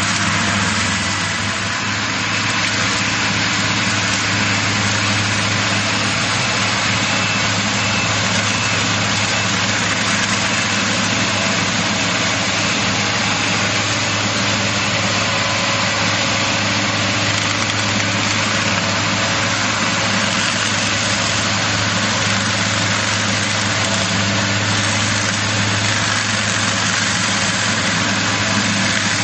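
Excavator-mounted Fecon Bull Hog forestry mulcher working: the diesel engine runs under load and the mulching drum spins, making a steady, unbroken drone as it chews through brush and small trees.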